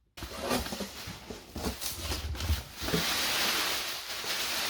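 Plastic packaging rustling and crinkling as a parcel is unpacked by hand, with a few soft handling bumps about two seconds in and a steadier, louder crinkle from about three seconds on.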